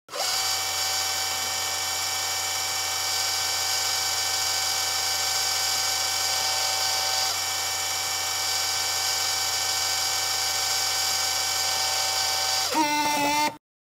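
A steady mechanical buzz made of many held tones, starting suddenly. Near the end its pitch wavers, and then it cuts off abruptly.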